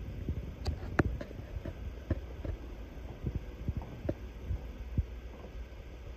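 Footsteps and handling knocks from a handheld phone carried through rooms: irregular low thumps and a few sharper clicks, roughly one every half second to a second, over a steady low rumble.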